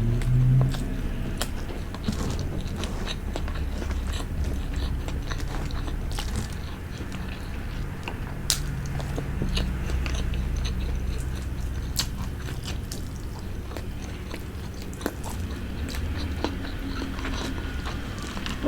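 Close-miked chewing and wet mouth sounds of a person eating fish head with rice, with scattered sharp clicks and smacks throughout. A steady low hum runs underneath.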